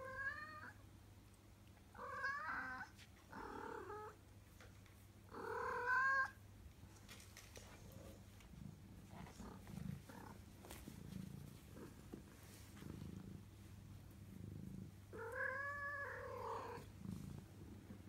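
Ragdoll kittens mewing: about five short, high, arching mews, the loudest about six seconds in and another pair near the end. Between them a soft, low kitten purr.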